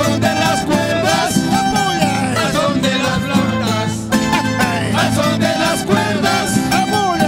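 Live Andean carnival music: acoustic guitar strummed while a group of men sing together into microphones, amplified through loudspeakers.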